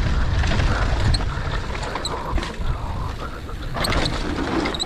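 Mountain bike descending a dirt trail, heard from a camera on the rider: steady wind rush on the microphone over tyres rolling on dirt, with the bike rattling over bumps and a few sharper knocks, about two and a half and four seconds in.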